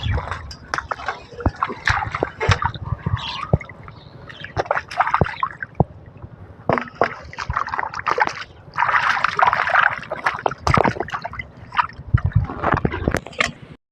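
Water splashing and sloshing in irregular bursts, with sharp clicks and knocks in between.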